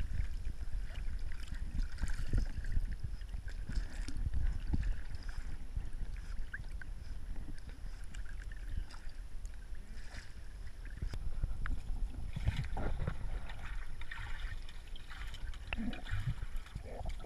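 Pool water lapping and sloshing against a camera at the surface: a low, uneven rumble of water with small splashes from dogs paddling close by.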